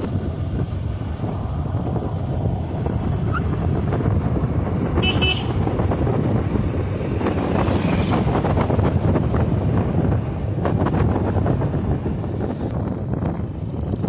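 Wind buffeting the microphone of a vehicle moving along a road, a steady loud rumble, with a brief high-pitched beep about five seconds in.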